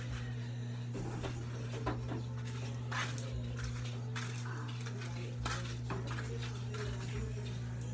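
Scattered light knocks and clinks of a cooking pot being handled and carried, with slipper footsteps on wet concrete, over a steady low hum.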